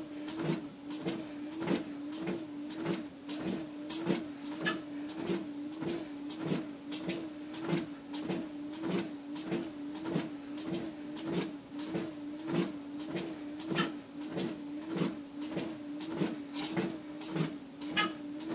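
Treadmill motor running with a steady hum that swells in time with the steps, and walking footfalls thumping on the belt about twice a second, at a slow 2.5 mph walk on an incline.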